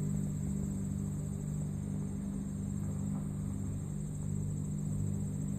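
Steady low hum under a continuous high, even insect trill, with no cat sounds.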